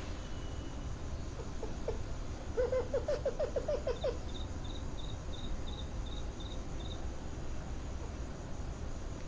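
Night-time animal calls from the undergrowth: a short run of low, rapid pulsed calls, then a series of about ten high, evenly spaced insect chirps.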